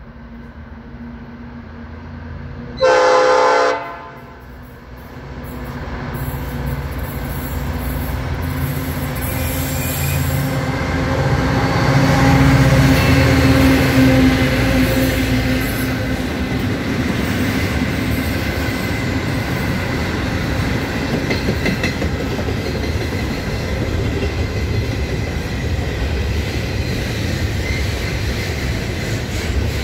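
Goods train's horn gives one loud honk lasting about a second, about three seconds in. Then the diesel locomotive runs through close by, its engine loudest around the middle, followed by the steady rumble and clatter of container wagons rolling past.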